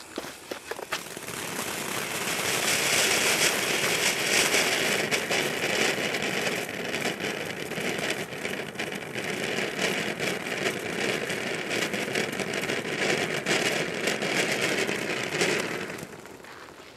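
Consumer ground fountain firework burning: after about a second of sputtering as it catches, it settles into a steady hiss of spraying sparks with many small crackles, then dies down near the end.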